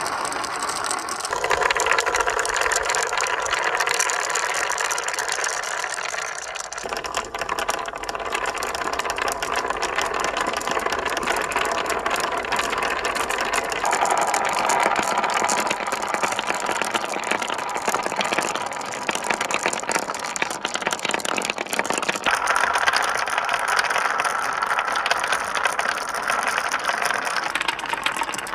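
Many marbles rolling and clattering along a marble run track in a dense, continuous rattle. Its character changes abruptly several times as the marbles pass onto different sections of track.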